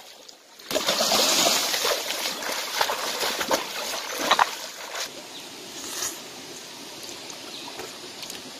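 Hands splashing and slapping hard in shallow stream water while grabbing for fish, with many sharp splashes. The splashing stops about five seconds in, leaving the steady trickle of the stream.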